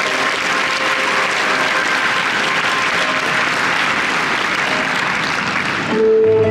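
Audience applauding steadily, with faint music underneath. Loud new music starts near the end.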